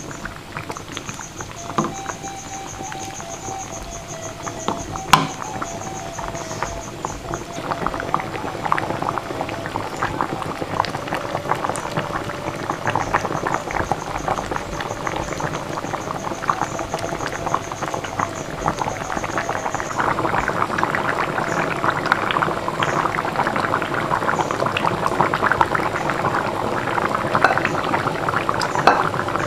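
Pot of coconut-milk fish curry bubbling on the boil, a dense crackle of small pops that grows louder about two-thirds of the way through. A single sharp knock about five seconds in.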